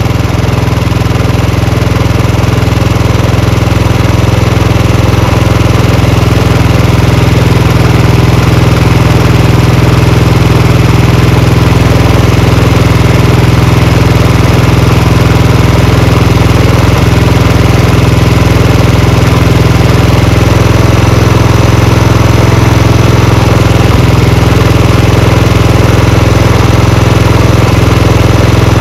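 Royal Enfield Bullet 350's single-cylinder engine idling steadily while its carburettor's mixture screw is turned to tune the idle; it gets slightly louder over the first few seconds, then holds steady.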